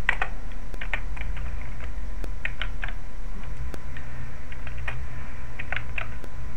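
Keystrokes on a computer keyboard, irregular clicks in short runs as code is typed, over a steady low hum.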